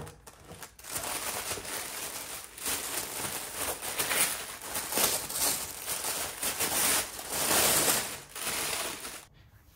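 Packaging wrapping crinkling and rustling in bursts as a package is unwrapped by hand, stopping abruptly near the end.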